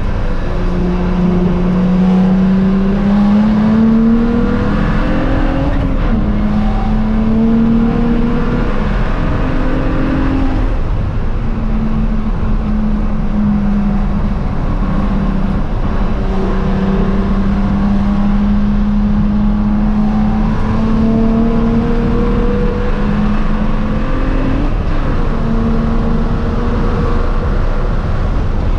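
BMW E92 335i's N54 twin-turbo straight-six running hard at racing speed, its note climbing and then dropping back again several times as the car accelerates and changes gear.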